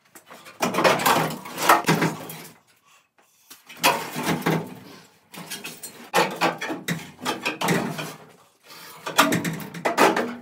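A cut-out, rusty sheet-steel cab floor pan from a 1980s Toyota Hilux scraping and clanking against the cab and chassis as it is worked out through the door opening, in about four rough bursts of a second or two each.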